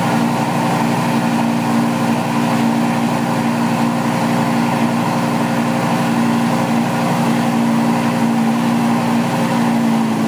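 An engine running steadily at an even speed, a constant droning hum.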